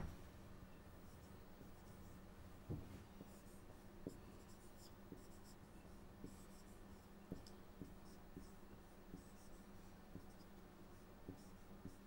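Marker pen writing on a whiteboard: faint squeaks and scratches in short strokes, with a few soft knocks of the pen against the board.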